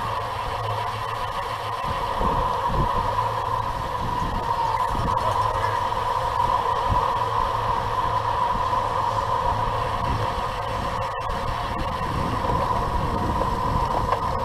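Wind rush and road rumble on the microphone of a bicycle-mounted camera riding in a racing pack at about 30 mph, with a steady hum. A single short click comes about eleven seconds in.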